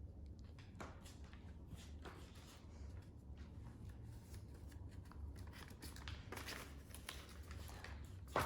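Faint rustling of newspaper and soft scraping and clicks as sticky papier-mâché paste is spread onto a newspaper volcano form, over a low steady hum.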